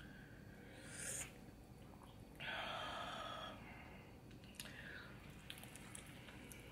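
Close-miked eating and breathing: a quick sniff about a second in, a longer breathy exhale through the nose around two and a half seconds in, then soft wet mouth clicks of chewing.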